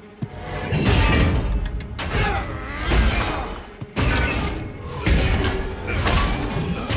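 Film soundtrack: a music score under several heavy metallic impacts, a double-bladed sword hacking repeatedly into a round metal shield, each blow a sudden loud strike about every second or two.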